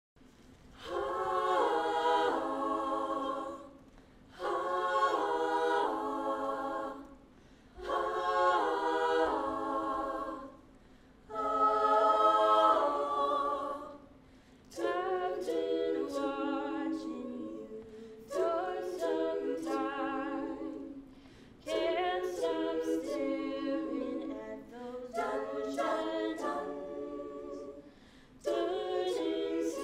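Women's a cappella group singing in close harmony. It opens with four held chords of about three seconds each, separated by short breaths, then moves into shorter, busier phrases marked by sharp ticks.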